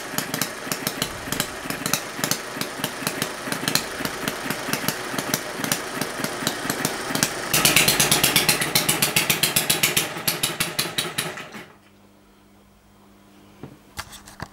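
Small four-stroke model hit-and-miss engine with spark ignition running, fuelled on lighter fluid: a fast, even train of firing beats and valve-gear clicks, louder and quicker for a few seconds past the middle. The running cuts off about twelve seconds in, leaving a faint hum and a few single clicks.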